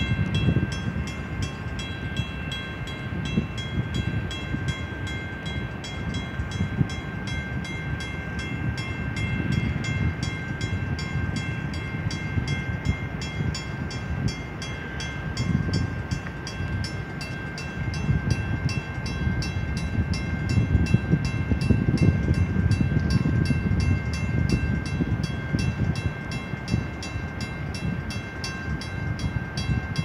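Low, uneven rumble of the cement freighter Alpena passing close by. A steady high ringing tone and a fast, even ticking run over it.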